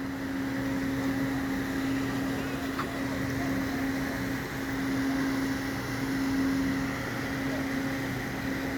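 Boat's machinery running with a steady hum and a constant low drone.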